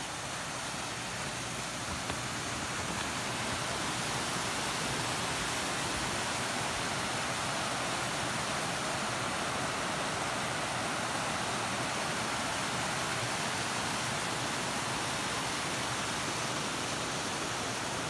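Waterfall rushing steadily, an even hiss of falling water that grows a little louder over the first few seconds.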